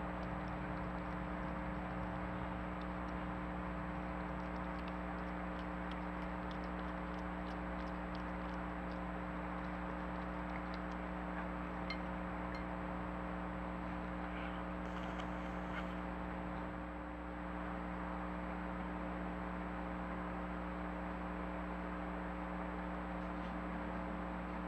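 Steady hiss and electronic hum, the self-noise of a trail camera's microphone, with a few faint scattered ticks.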